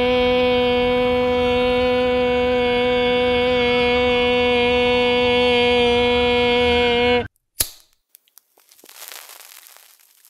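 A man's long wailing cry, like a crying baby, held on one steady note and cut off abruptly about seven seconds in. A single sharp click follows, then faint crackling.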